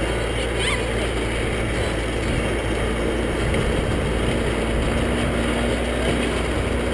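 A vehicle engine running steadily, a low, even drone that does not change.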